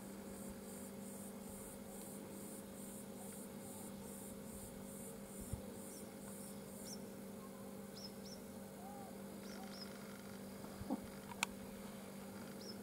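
Faint outdoor ambience: a steady low hum, a high pulsing that repeats two or three times a second and stops about halfway, and a few short, high chirps. A sharp click sounds about two-thirds of the way in.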